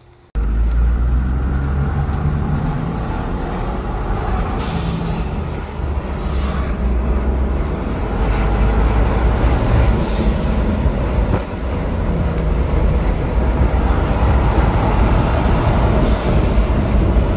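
Ford Bronco's 2.7L EcoBoost twin-turbo V6 driving, with heavy wind and road rumble on the microphone. A short hissing whoosh from the newly fitted aftermarket blow-off valve comes about four seconds in, and another near the end.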